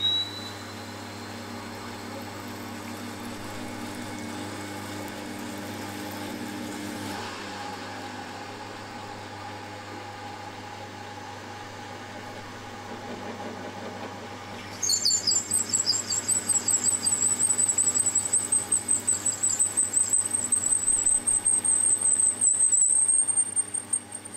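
Milling machine running steadily while a 1/2 inch reamer is fed through the engine's main bearing blocks, with a brief squeak at the start. Partway through, as the reamer cuts into the lower block, a loud, high, fluttering squeal of the reamer in the metal sets in and lasts about eight seconds before stopping just before the end.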